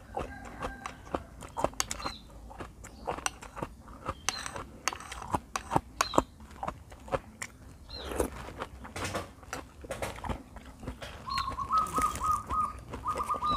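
Close wet chewing and mouth smacking as raw beef liver is eaten. From about eleven seconds in, a dove coos in three short, rapid phrases.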